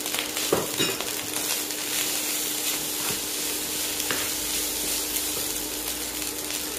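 Fried rice sizzling in a hot nonstick wok as it is stirred and tossed with a wooden spatula, with a few brief knocks of the spatula against the pan. A faint steady hum runs underneath.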